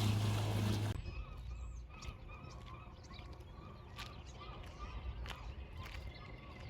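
Faint bird calls: scattered short chirps repeating through a quiet stretch, with a few sharp clicks. Before that, for the first second, there is wind with a steady low hum, which cuts off abruptly.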